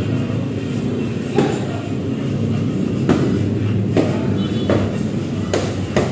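Boxing gloves hitting focus mitts: about six sharp slaps in an uneven rhythm, over a steady low drone.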